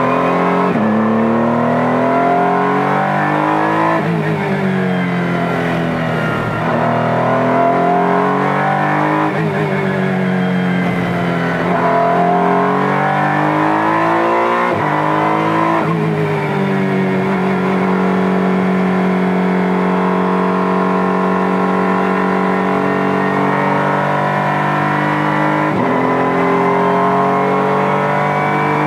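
Honda NSX GT3 race car's twin-turbo V6, heard from inside the cockpit, revving up and dropping through gear changes as it accelerates out of corners. In the second half the engine holds one steady note for several seconds, then shifts again near the end.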